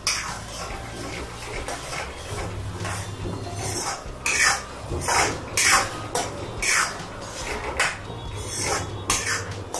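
A steel spatula scraping and stirring chopped tomatoes and onions frying in an iron kadai. It makes a dozen or so short scrapes at an uneven pace, the loudest in the middle of the stretch.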